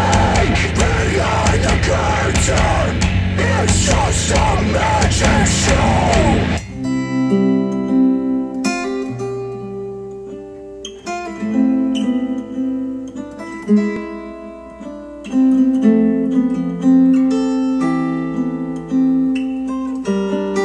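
Recorded music from KEF R3 bookshelf speakers: the loud, dense end of a death metal track, cutting off abruptly about six seconds in, then a solo acoustic guitar piece of separate plucked notes and chords with quiet gaps between phrases.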